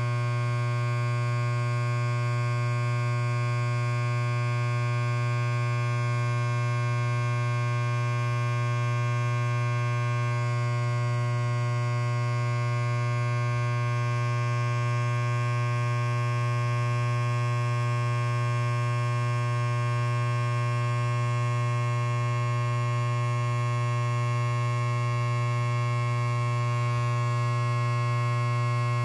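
Electric hair clipper running idle with its blade free of hair, giving a steady, even buzz with a strong low hum.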